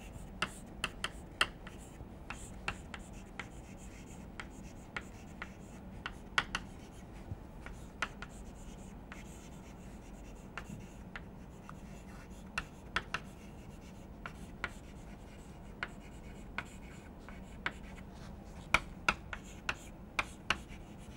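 Chalk writing on a blackboard: irregular sharp taps and short scratches of the chalk stick on the board as a line of text is written, with a quick cluster of taps near the end. A faint steady hum lies underneath.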